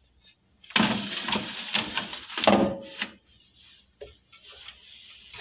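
Metal baking tray sliding onto a countertop oven's wire rack, scraping and clattering with brief metallic ringing, then a single sharp knock about four seconds in.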